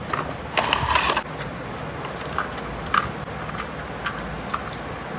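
Hands handling a small die-cast toy tractor and its packaging: a short rustle about half a second in, then a few scattered light clicks and taps.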